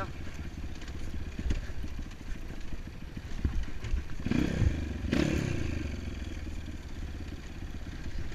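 Dirt bike engine running under way on a rough forest trail. The revs rise sharply twice in quick succession about halfway through as the throttle is opened, with a few knocks from the bike over the bumpy ground.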